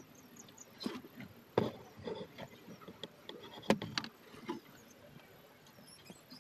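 Scattered knocks and rustles of handling around a wooden rabbit hutch and its fur-lined nest box, with two sharper knocks about a second and a half in and just before four seconds.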